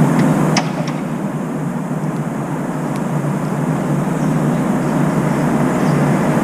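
Steady low rumble of urban traffic noise, with a few short sharp clicks from a brown-eared bulbul's beak pecking at its feed bowl.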